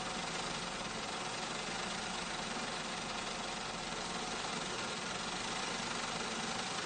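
Factory machinery running steadily: a constant mechanical noise with a faint steady hum in it.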